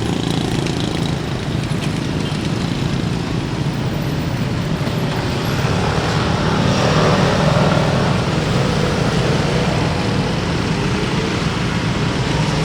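Steady motor-vehicle and traffic noise with a low engine hum, swelling about six to eight seconds in.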